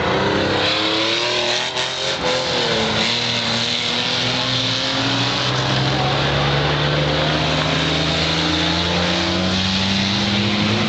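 Super banger race cars' engines running hard around the oval, several engine notes overlapping. One engine note climbs slowly in pitch through most of the stretch.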